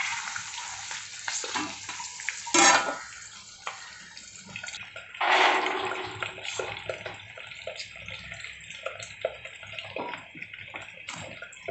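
Hot oil sizzling as prawns deep-fry in a kadai, with a loud clatter about two and a half seconds in. The hiss stops after about five seconds; a short, louder burst follows, then light clinks and scraping of a fork stirring instant noodles in a steel pot.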